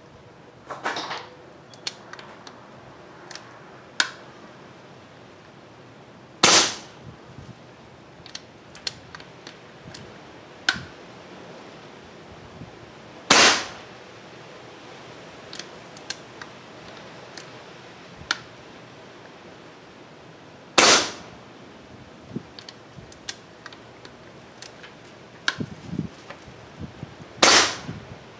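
Evanix Rainstorm II PCP air rifle, regulated by an Air-Superiority Huma regulator set at its 165-bar maximum, firing four shots about seven seconds apart, each a sharp crack. Fainter clicks sound between the shots.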